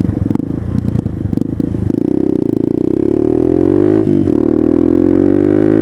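Suzuki DR200's single-cylinder four-stroke engine through a DG O-series aftermarket exhaust, ridden and accelerating: a rough low rumble at first, then the pitch rises steadily, drops sharply at a gear change about four seconds in, and climbs again.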